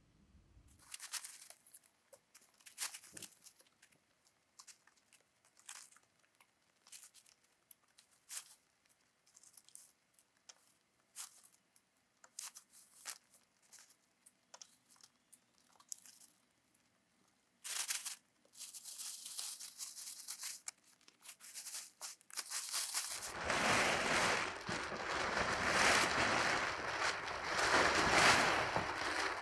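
Scattered light crunching in dry leaf litter, then from about 23 seconds in a heavy plastic tarp rustles and crinkles loudly as it is lifted and pulled back.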